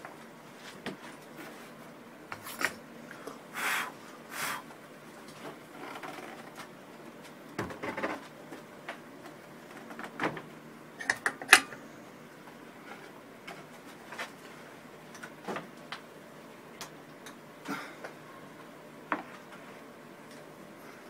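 Scattered clicks and knocks with a few short scraping sounds, loudest in a quick cluster of clicks about halfway through, over a faint steady low hum in a small workshop.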